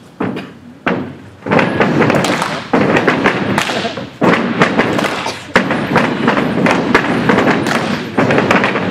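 Step team stepping, stomping and clapping: a few separate sharp stomps, then from about a second and a half in a dense, fast run of stomps and claps.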